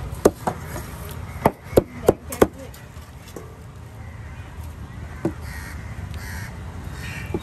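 Sharp, hard chops, like a heavy knife cutting fish on a wooden block. There are two early, a quick run of four about a second and a half in, and one more past the middle, with crows cawing.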